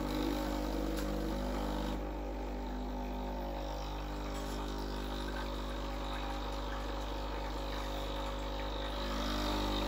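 Breville Barista Express BES870's vibratory pump running a blank shot: a steady buzzing hum as hot water is pushed through the empty group head to warm up the machine. It drops slightly in level about two seconds in and rises again near the end.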